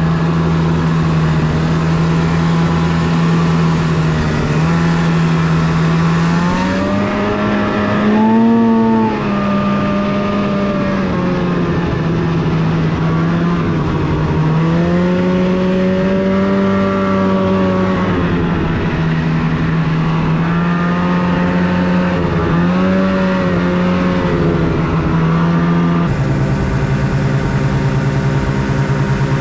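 Snowmobile engine running steadily under way, its pitch rising and falling as the throttle is opened and eased off several times, then settling lower and steadier near the end.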